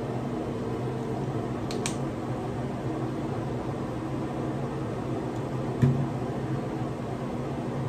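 Steady mechanical hum of a ventilation fan, with a couple of sharp clicks about two seconds in and a short knock near six seconds in.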